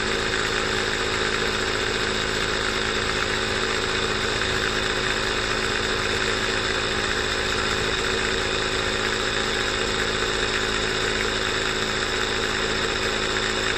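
Oasser P6 portable 12-volt tire inflator running steadily, a constant mechanical hum with no change in pitch, as it pumps a tire up toward its 30 psi automatic shut-off.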